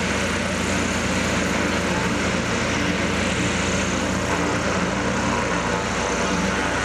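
Zeppelin NT airship's engines and propellers running steadily on the ground, an even engine drone over propeller wash.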